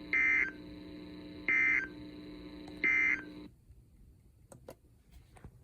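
Emergency Alert System end-of-message signal: three short, identical warbling data bursts about 1.4 seconds apart, marking the end of the severe thunderstorm warning broadcast. A steady hum under them cuts off suddenly just after the third burst, followed by a few faint clicks.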